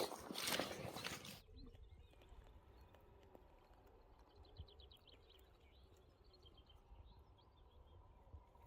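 A faint songbird trill of rapid repeated high notes over a low steady wind rumble. It is preceded by a brief loud rush of noise that cuts off abruptly about a second and a half in.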